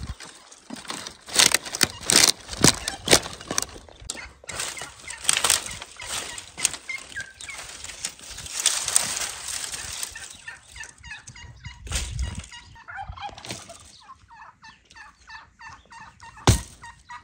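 Dry brushwood branches are pulled from a pile and snapped by hand: a run of sharp cracks and twig rustling over the first ten seconds. After that, domestic fowl call repeatedly in the background, and an axe strikes wood once near the end.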